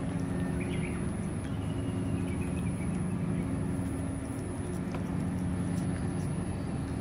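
A steady low mechanical hum, like an engine running, fills the background, with a thin high insect whine and a few faint bird chirps in the first couple of seconds. Soft scattered clicks come from a cat eating wet food from a stainless steel dish.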